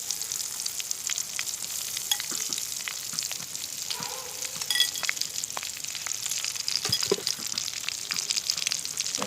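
Slit green chillies, coated with salt and turmeric, sizzling in hot oil with steady hissing and frequent sharp crackles and pops.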